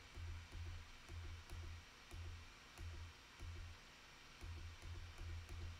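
Faint, irregular clicking at a computer, roughly two clicks a second, as trail-camera photos are paged through. Under it runs a low hum that cuts in and out.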